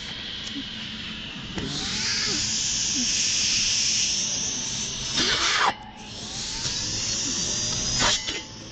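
Petrol 3-in-1 brush cutter's engine running at high throttle with a high-pitched whine. A short louder rasp comes just before the engine drops off briefly near the six-second mark, and then it revs up again.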